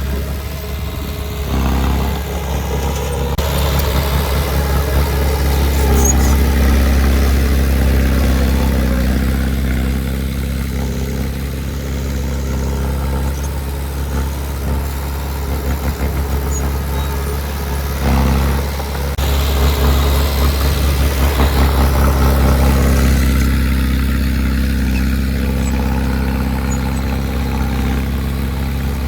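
Diesel engine of heavy earthmoving equipment running steadily, its note swelling louder under load twice, a few seconds in and again past the middle.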